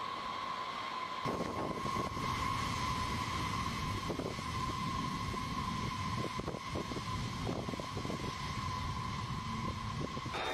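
Jet engines of a Boeing B-52 Stratofortress whining steadily as the bomber taxis, with a low rumble coming in about a second in.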